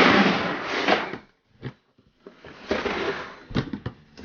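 Rummaging through slime-making supplies: plastic rustling in two bursts with several sharp clicks and knocks of containers being handled.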